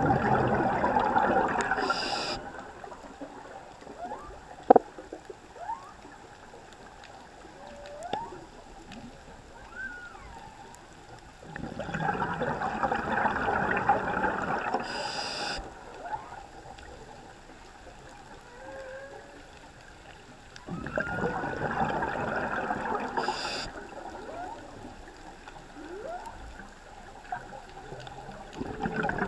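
Humpback whale song heard underwater: faint calls that glide up and down in pitch. About every nine seconds a scuba diver's exhaled bubbles rush loudly for three to four seconds, drowning the song out.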